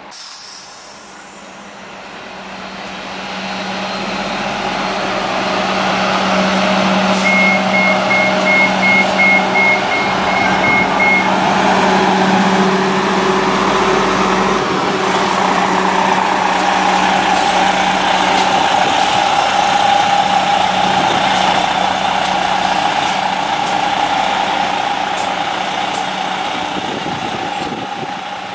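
Greyhound intercity coach's diesel engine running as the bus drives close past, its drone building up over the first few seconds. A quick series of about a dozen evenly spaced beeps, roughly three a second, sounds a few seconds in. In the second half a steady whine rides over the engine as the coach pulls away, and it fades near the end.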